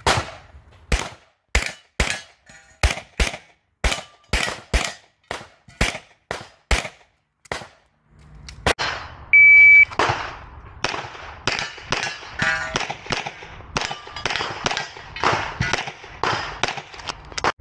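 Semi-automatic pistol fired in a fast string of shots for about eight seconds. A shot timer then beeps once, a high steady tone, and another rapid string of pistol shots follows, with more echo.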